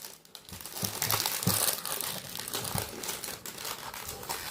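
Plastic wrapping crinkling and crackling as hands work at peeling it off a toy capsule, with the tight wrap proving hard to open.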